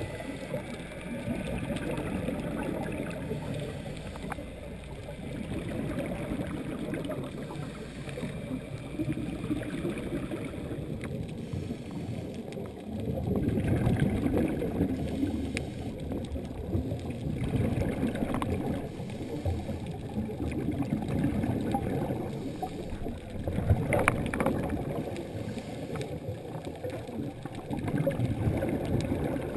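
Scuba diver's exhaled regulator bubbles, heard underwater through the camera housing as a muffled low bubbling that swells every few seconds with each breath.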